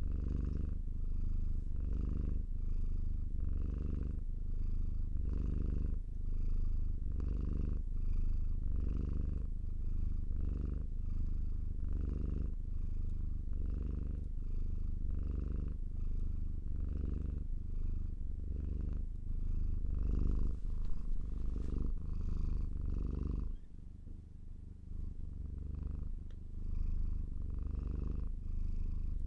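Domestic cat purring, a steady low rumble that pulses evenly with each breath in and out. It grows quieter for a couple of seconds about two-thirds of the way through, then picks up again.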